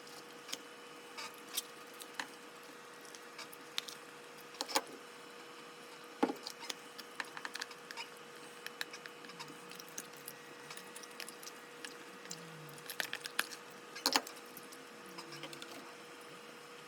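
Scattered light clicks and taps of cutlery on a plate while eating, at irregular intervals, with a sharper pair about six seconds in and a cluster near fourteen seconds, over a faint steady hum.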